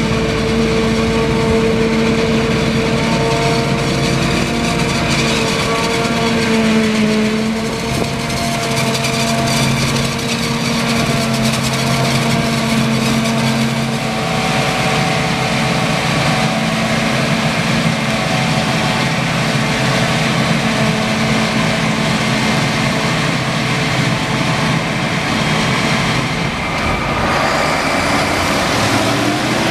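CLAAS Jaguar 840 forage harvester running, a steady engine and machinery drone with a constant tone; the pitch rises near the end.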